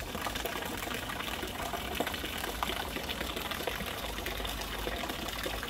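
Small fountain jet bubbling and splashing steadily into a shallow stone pool.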